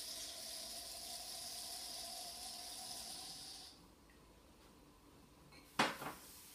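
Red wine poured from a bottle through a handheld wine aerator into a glass: a steady rush of wine and air drawn through the aerator, which stops after about four seconds. Near the end, a sharp knock as the bottle is set down on the table.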